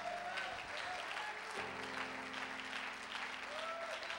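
Congregation applauding, with sustained chords played underneath that move to a new chord about a second and a half in.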